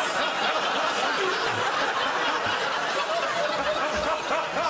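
A studio audience laughing together, with the host laughing among them.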